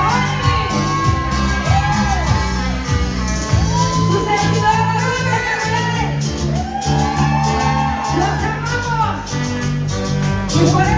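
Loud Latin dance music playing over a sonidero sound system, with a steady bass beat and a swooping melody.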